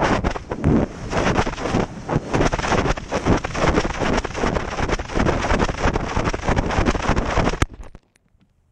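Strong wind buffeting over the microphone of a GoPro strapped to a falling rifle, rushing and fluttering unevenly as it drops through the air. Near the end a sharp knock as it hits the ground, and the rush cuts off.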